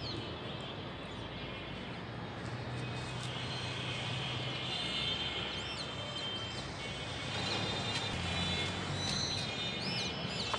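Steady outdoor background noise with a low hum, and a few faint bird chirps about halfway through and again near the end.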